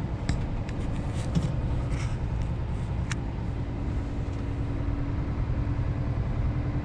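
Scania R-series truck's diesel engine running steadily at low revs, heard from inside the cab, with a few light clicks in the first three seconds.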